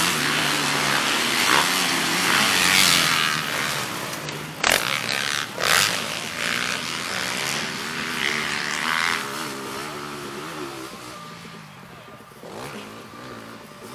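Motocross dirt bike engines revving up and down, rising and falling in pitch as the bikes race along the track. Loud at first, then fading away over the last several seconds, with a sharp knock about four and a half seconds in.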